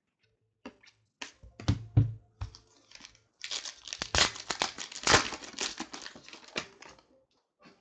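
A few clicks and rustles of trading cards being handled, then, about three and a half seconds in, a card pack's foil wrapper crinkling and tearing as it is ripped open.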